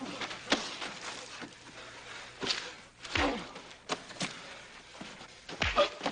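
Fistfight: a run of punches and body blows with scuffling on dirt and a few grunts, the two heaviest thuds about halfway through and near the end.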